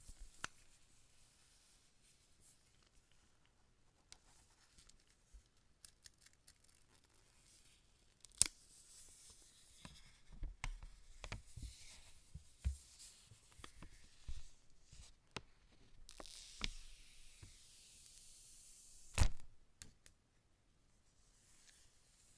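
Phone retail packaging being opened and handled: rustling and tearing in two stretches, scattered clicks, and a sharp knock near the end.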